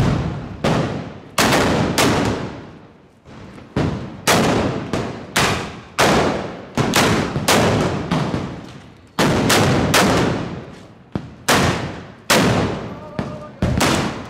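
Black-powder arquebuses (arcabuces) firing blank charges one after another in a mock battle, about one to two sharp shots a second at uneven intervals. Each shot trails off in a ringing echo, with short lulls about three seconds in and again after eight seconds.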